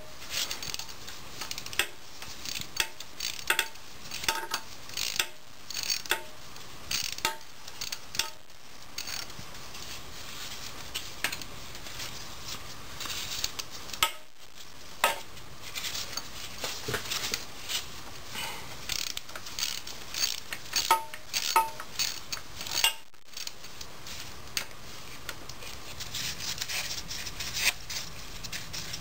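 Hand socket ratchet clicking in runs as the 13 mm oil pump bolts are turned out of a 4L80E transmission case, with occasional clinks of metal.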